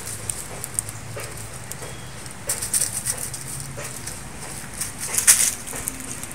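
Leaves and twigs rustling and crackling as branches are pushed aside, with two louder bursts of rustling about two and a half and five seconds in.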